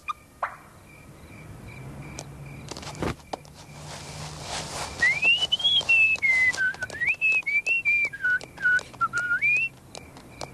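A person whistling a wandering tune that starts about five seconds in and stops shortly before the end, over a scatter of light clicks, with a single thump about three seconds in.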